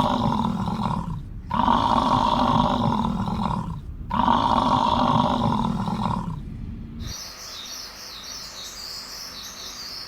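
Three long, steady low-pitched sounds of about two seconds each, cut apart by short silent breaks, then from about seven seconds in small birds chirping.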